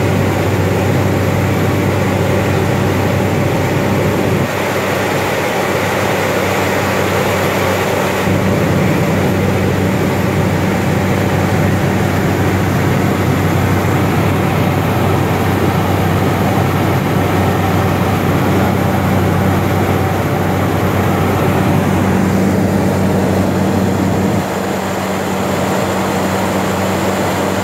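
GE H80 turboprop engine and propeller of a DHC-3 Otter running steadily, heard from inside the cockpit: a loud, even drone with a low propeller hum under it, shifting slightly a few times.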